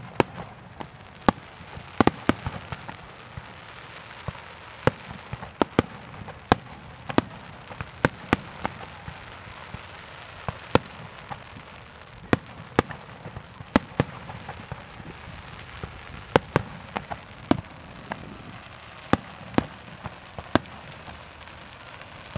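Aerial fireworks shells bursting in a run of sharp bangs, irregularly spaced at roughly one or two a second, over a continuous crackling hiss.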